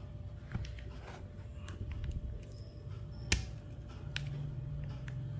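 Small plastic clicks and scratches as a plastic pry tool is worked into the seam of a Redmi 2s smartphone's plastic housing to open it, with one louder click a little past three seconds in.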